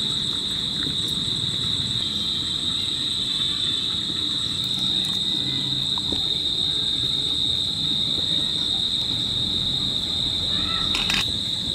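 Steady, high-pitched drone of insects in the surrounding vegetation, one unbroken tone, over a low background rumble.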